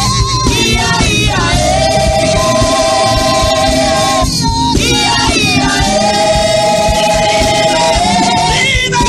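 Gospel choir singing held notes over a band accompaniment, with short breaks between phrases.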